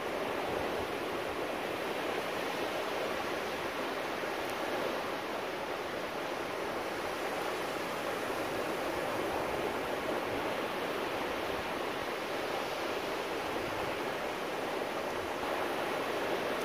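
Steady, unbroken wash of ocean surf breaking on a sandy beach.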